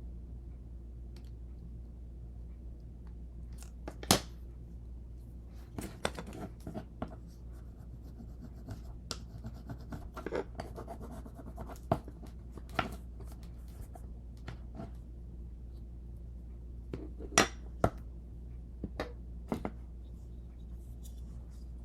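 Scattered light clicks and scrapes of small pieces being handled on a work surface, the sharpest about four seconds in and twice near the end, over a steady low hum.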